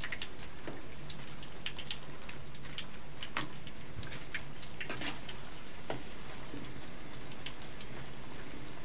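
Tempeh frying in hot oil in a wok: a steady sizzle with irregular pops and crackles.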